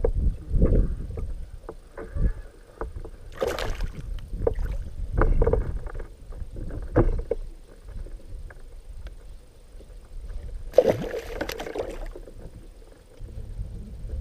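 Knocks, bumps and handling noise aboard a small fishing boat, with two louder splashy rushes of noise: one about three and a half seconds in, and a longer one near the end.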